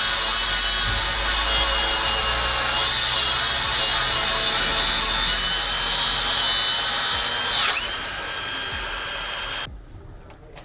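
A power tool cutting, with a steady high motor whine over rough cutting noise. About three-quarters of the way through the motor dips and stops, and near the end the sound cuts off suddenly.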